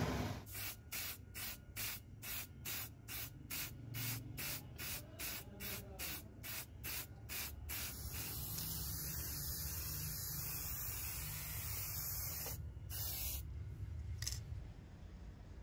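Aerosol spray paint can spraying a metal spear shaft: a rapid run of short hissing bursts, about three a second, then one long continuous spray of about four seconds, then a few short bursts near the end.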